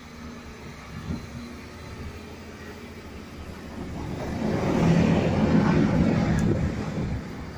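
Two coupled electric locomotives passing close by on the rails: a rumble that builds over a few seconds, is loudest about five seconds in as they go past, and then fades.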